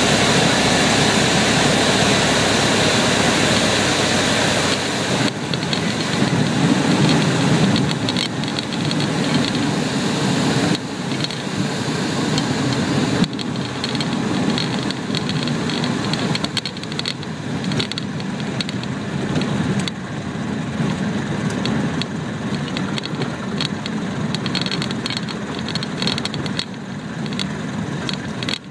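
Single-engine propeller airplane engine heard from inside the cockpit, dropping in power about five seconds in and again around eleven and thirteen seconds, then running near idle through the landing rollout. Irregular knocks and rattles come in during the later part as the plane rolls over the dirt strip.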